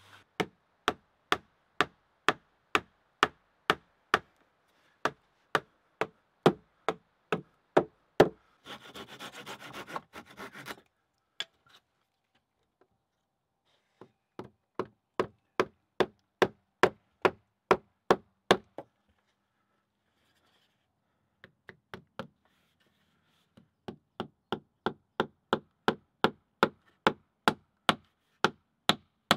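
Wooden mallet knocking a wooden peg into a log joint: three runs of steady blows, about two a second, with pauses between them. A short scraping rustle comes about nine seconds in.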